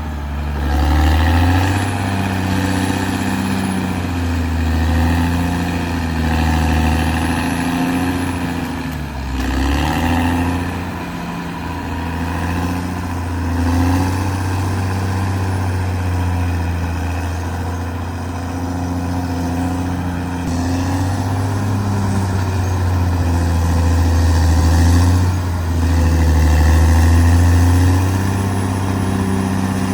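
Caterpillar D6R XL bulldozer's diesel engine running under shifting load, its note rising and falling, with a brief dip and recovery about nine seconds in.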